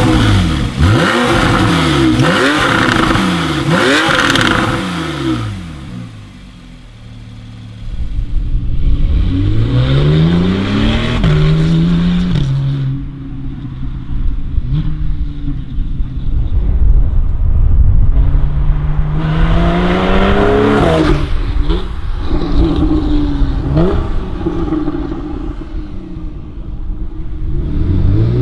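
2014 Porsche 911 Targa 4S's 3.8-litre flat-six revved hard several times while standing, each rev rising and falling quickly. Then the car accelerates: the engine note climbs repeatedly, with short breaks at the gear changes.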